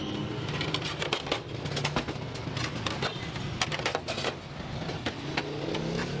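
Stacked plastic plates clacking and clattering against each other as they are handled and restacked by hand, in quick irregular clicks.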